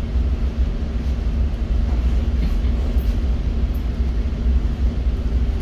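Towboat's diesel engines running steadily under way: a deep, even rumble with a constant hum above it.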